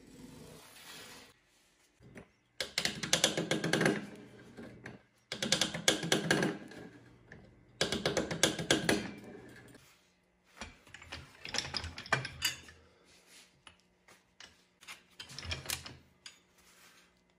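Stainless steel perforated sheet being cut on a hand-lever bench shear: three long runs of dense crunching clicks, each about one and a half to two seconds. From about ten seconds in, sparser, lighter clicks as the sheet is rolled into a tube on a slip roll.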